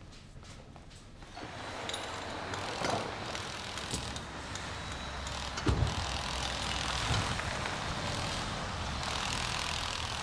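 A car driving slowly past with engine and tyre noise, and a low thump about six seconds in.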